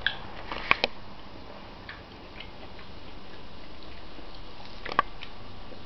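A clementine being peeled by hand: soft crackles of the rind tearing, with a few sharp snaps, two close together just under a second in and a stronger one about five seconds in.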